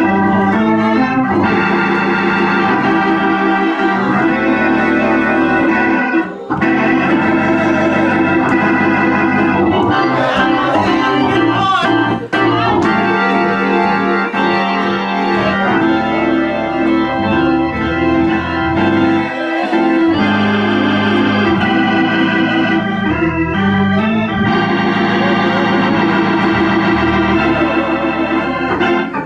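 Organ playing slow, held chords that change every few seconds, with short breaks about six and twelve seconds in.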